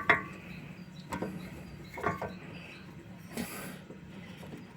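Sparse clicks and knocks of hand-tool work slackening the handbrake cable adjuster, about one a second, with one brief scrape past the middle, over a faint low hum.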